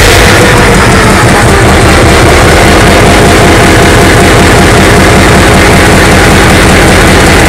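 Large inline multi-cylinder diesel engine running loud and steady with its valve covers off, the exposed rocker arms and valve springs adding a fast, even clatter over the deep engine beat.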